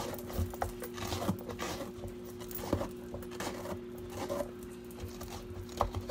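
Scraping out the inside of a small pie pumpkin with a handheld scraper: irregular scratching strokes against the pumpkin's flesh, with small clicks and knocks.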